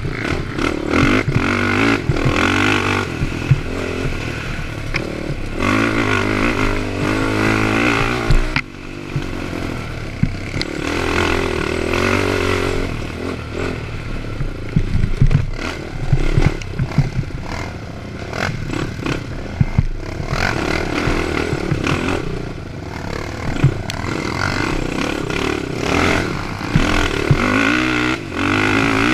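Honda TRX450ER quad's single-cylinder four-stroke engine being raced hard on a rough dirt trail, revving up and dropping off again and again as the throttle is worked. The throttle drops off sharply about eight and a half seconds in. Rattling and knocks from the machine over rough ground run throughout.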